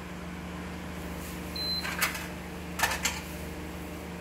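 A single short, high beep from an Imarflex induction cooktop's touch controls as it is switched off, over a steady low hum. Two sharp knocks follow, about a second apart.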